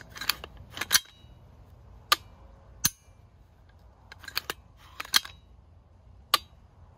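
Dry-firing an AR-15 fitted with an Elf Tactical PCC trigger with a heavy hammer: the charging handle is racked to reset the hammer and the trigger is pulled. This gives a series of about eight sharp metallic clicks and clacks, spaced unevenly.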